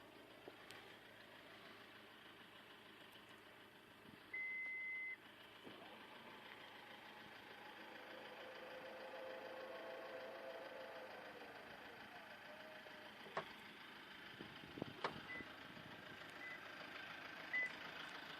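Toyota RAV4 power liftgate in operation: a single warning beep lasting under a second, then its electric motor running for about seven seconds with a faint whine that rises and falls, a click as it stops, and three short beeps near the end.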